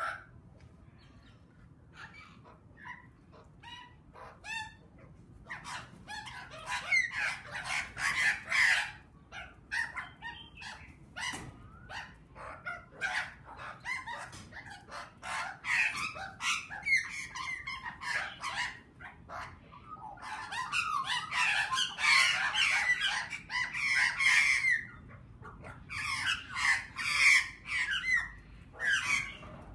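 A flock of Australian magpies calling while feeding together: short squawky calls, few and soft at first, then from about six seconds in coming in waves of dense overlapping chatter.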